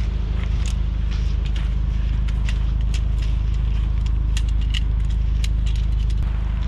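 Wind buffeting the microphone, with many short, light clicks and clacks scattered through it as segmented tent poles are handled and pulled apart.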